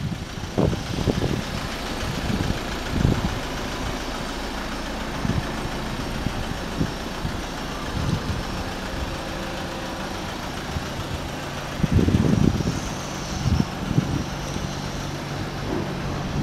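Ford Transit Custom van's diesel engine idling steadily, with gusts of wind buffeting the microphone, the strongest about twelve seconds in.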